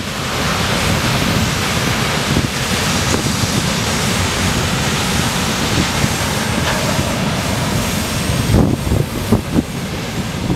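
The rear tank cars of a freight train roll past on the rails as a steady rushing noise that fades about eight seconds in. Wind buffets the microphone in gusts near the end.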